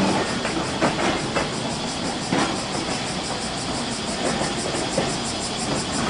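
Okayama Electric Railway tram running on street track, its wheels clicking a few times over rail joints in the first couple of seconds, over a steady rumble of moving traffic.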